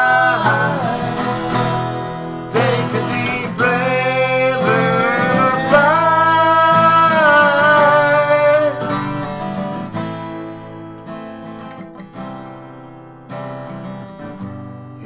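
Live acoustic Americana music: two acoustic guitars strummed, with long held, wavering vocal notes over them for the first two-thirds. The voice then drops out and the guitars carry on more quietly.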